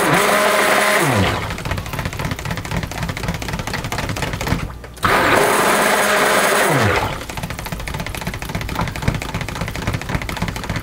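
Stick blender running in blue cold-process soap batter in two runs, with a brief stop a little before halfway. Each run starts loud and drops in pitch and level after about a second and a half. The batter is thickening toward trace.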